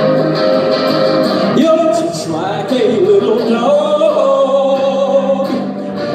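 A folk song played live: electric guitar strummed steadily, joined about a second and a half in by a man singing long notes that slide up and down in pitch.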